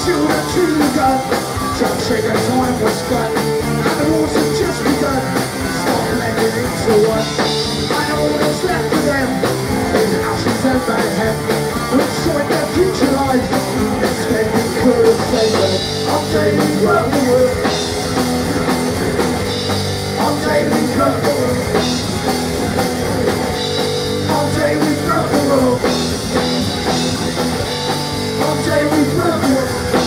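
Live rock band playing a song: electric guitar, bass guitar and drum kit, with a sung lead vocal.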